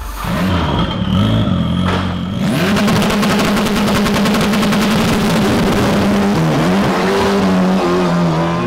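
Formula 4 race car engine revving, then running steadily under power as the car pulls away, with a brief dip and recovery in pitch about six and a half seconds in.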